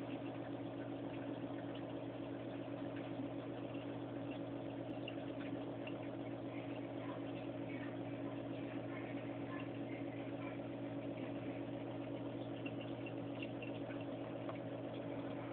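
Steady mechanical hum of aquarium pumps running, with faint scattered crackles over it.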